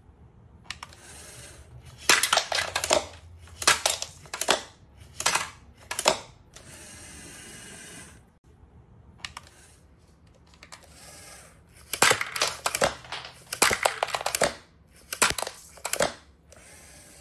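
A LEGO SPIKE Prime robot at work. Sharp plastic clattering and knocking comes in two groups of about four bursts, and between them its small motors give a faint, steady whir.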